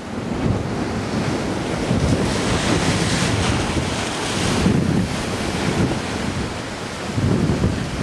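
Gusty wind buffeting the microphone over the wash of sea surf against a rock breakwater. A brighter, hissing swell of surf or wind builds from about two seconds in and drops off around five seconds.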